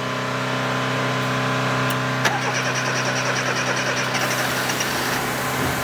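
Fiat Uno 60S 1.1-litre four-cylinder engine running steadily with a steady hum after being started on its rebuilt starter motor; one sharp click about two seconds in.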